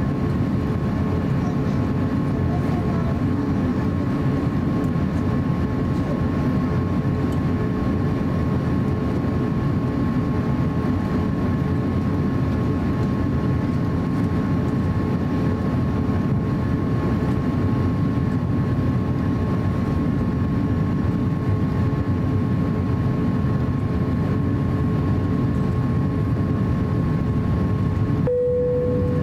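Cabin noise inside an Airbus A350-900 taxiing, its Rolls-Royce Trent XWB engines at idle: a steady low rumble and hiss with a faint steady whine. Near the end the hiss drops away briefly and a single steady tone comes in.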